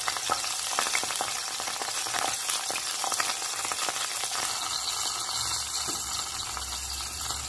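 Stuffed artichokes frying in olive oil in an uncovered pot: the oil sizzles steadily with a fine, continuous crackle.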